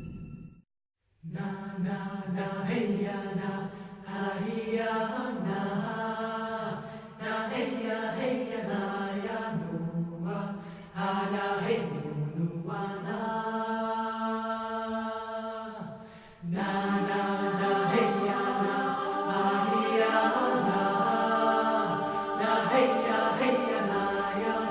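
Soundtrack music of voices chanting in long held notes, choir-like, changing pitch in slow phrases. It starts after a short silence about a second in and briefly drops out near the sixteen-second mark before going on fuller.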